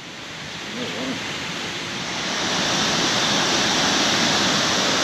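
Steady rush of a river waterfall, growing louder over the first two or three seconds as the falls come into view, then holding steady.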